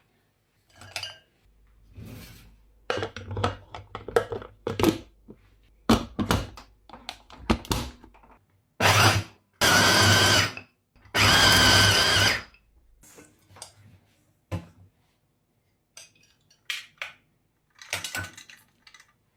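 Electric meat grinder chopping hard pieces of fried pork (pork cracklings) for dumpling filling. First come knocks and clatter as it is loaded and closed, then the motor whirs in three short runs of about a second each, a little past the middle.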